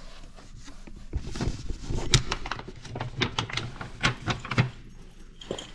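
A key rattling and clicking in a hotel room door's knob lock and the door being worked open: a quick, irregular run of metallic clicks and knocks.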